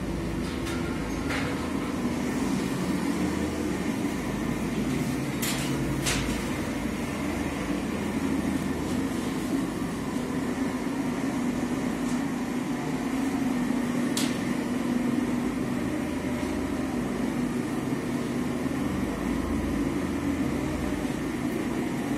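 Gas-fired heat gun running with a steady fan-and-burner noise as it warms the PVC film of a stretch ceiling, with a few short sharp clicks over it.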